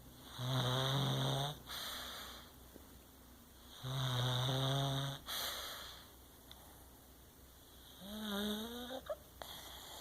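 Pug snoring in her sleep: three rough snores about every four seconds, each with a low buzz, the first two followed by a softer breath out and the third rising in pitch.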